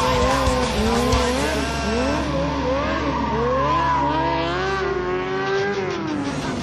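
Sport motorcycle engine revving up and down again and again while the rear tire squeals and slides under stunt riding.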